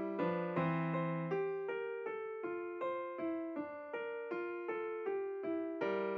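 Background piano music: a melody of evenly paced notes, about three a second, each struck and fading.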